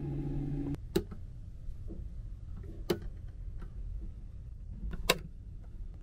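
A small ceiling exhaust fan hums steadily, then cuts off sharply with a click a little under a second in. Three sharp plastic switch clicks follow, the last the loudest, from the pod's wall control panel with its ventilation-fan switch.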